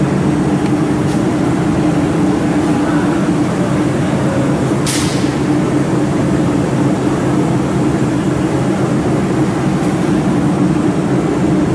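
Steady machine hum of a laser welding machine and its water chiller running, with a low drone throughout. One brief sharp hiss cuts through about five seconds in.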